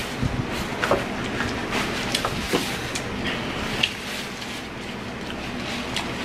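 Paper napkins being unfolded and handled, a crackling rustle with sharp crinkles that thins out after about four seconds.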